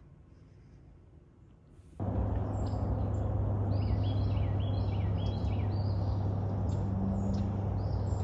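Faint room tone, then from about two seconds in a steady low outdoor rumble with birds calling over it: a run of short, repeated downward chirps.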